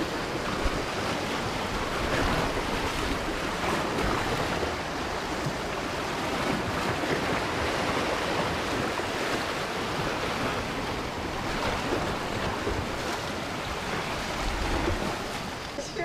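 Strong sea waves washing against a rocky shore: a steady, unbroken rush of surf.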